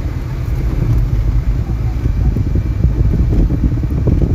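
Steady low rumble of road and wind noise inside a moving car's cabin, with wind buffeting the phone's microphone.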